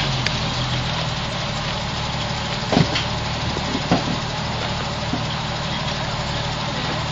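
Lifted Jeep Cherokee XJ's engine idling steadily, with two short knocks about three and four seconds in.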